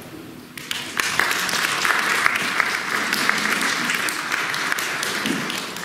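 Audience applauding, starting about a second in and stopping sharply near the end.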